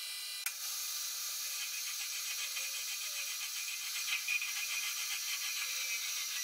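Metal lathe running with its chuck spinning, a steady hiss with a fast, faint ticking in it. The sound changes abruptly about half a second in, where a cut in the footage starts the spinning chuck.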